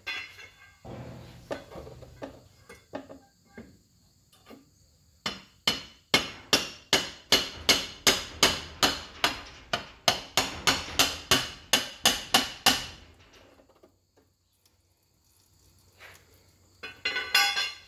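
Hammer tapping on a steel ratchet extension set against a tab of the engine case, driving the stuck case loose. A few scattered light taps come first, then a steady run of harder strikes at about three a second for some seven seconds, and after a pause a short quick cluster of taps near the end.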